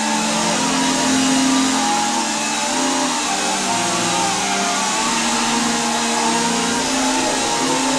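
Small 7.4-volt quadcopter (Skull 1031 Halloween drone) flying, its motors and propellers making a loud, steady buzzing whine whose pitch wavers up and down as the throttle changes.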